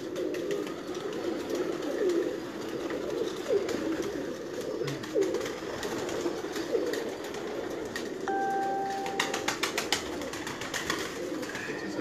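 A loft full of domestic pigeons cooing in a continuous chorus of low, warbling calls. About eight seconds in, a brief steady beep sounds, followed by a quick run of clicks.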